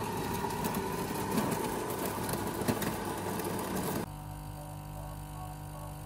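De'Longhi Magnifica Evo bean-to-cup espresso machine grinding coffee beans, a loud steady grinding noise for about four seconds. It then switches to the steadier, quieter hum of its pump as the coffee brews and pours.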